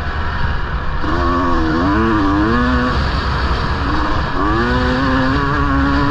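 1999 Honda CR250R's two-stroke engine revving as it is ridden: the pitch rises and falls about a second in, climbs again past the middle, then holds steady to the end, over a constant low rumble.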